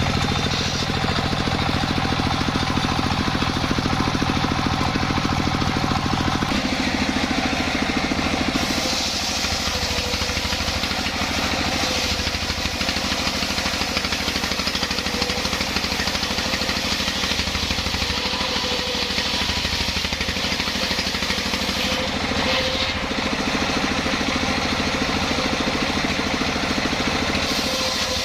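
Engine-driven sawmill saw running and cutting a jackfruit log, a steady loud machine sound whose tone shifts a few times as the cut goes on.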